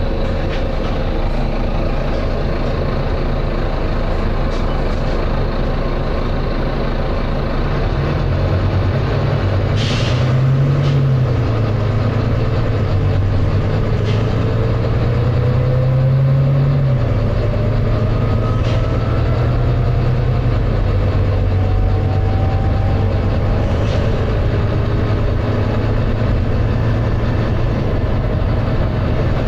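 Volvo B9TL double-decker bus's six-cylinder diesel engine and driveline running under way, heard from inside the bus; the engine note rises and falls twice, and a whine climbs steadily in pitch over about ten seconds as the bus gathers speed. A short burst of air hiss from the bus's air system comes about ten seconds in.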